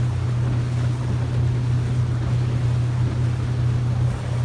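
Motorboat engine running at a steady low drone while the boat moves slowly, with the rush of wind and water around it.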